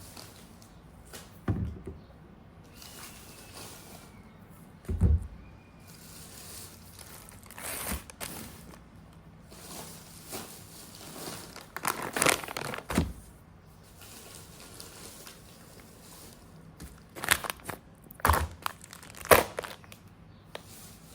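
Household handling sounds: packaging or bags crinkling, with objects knocking down onto a surface in scattered bursts, busiest near the middle and towards the end.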